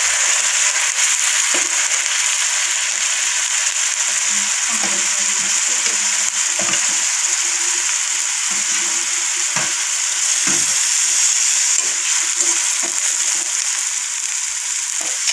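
Chopped onions frying in hot oil in a kadhai: a steady sizzling hiss, with occasional short scrapes and knocks of a metal spoon stirring them against the pan.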